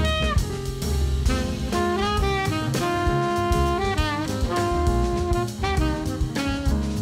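Background jazz music: a horn melody of held notes that bend and slide, over a drum kit.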